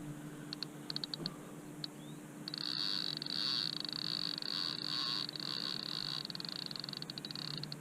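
Fishing reel's drag ticking as a hooked carp takes line: a few separate clicks, then from about two and a half seconds a fast, continuous run of high ticks.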